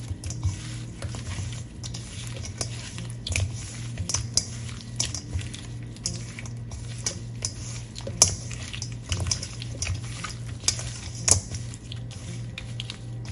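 Raw shell-on shrimp being tossed and pressed by a gloved hand in a stainless steel bowl: irregular clicks and scrapes of the shells against the metal, with two sharper knocks about eight and eleven seconds in.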